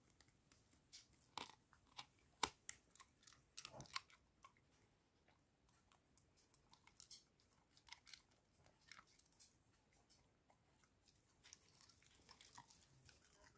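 A German Pinscher chewing a chew treat, with faint irregular crunching and clicking bites. The crunches come thick in the first few seconds, thin out, and pick up again near the end.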